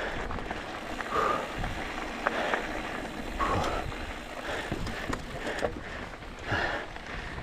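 Mountain bike rolling over a rocky dirt trail: tyres crunching on gravel with scattered clicks and knocks from the bike, and a burst of noise that repeats about once a second.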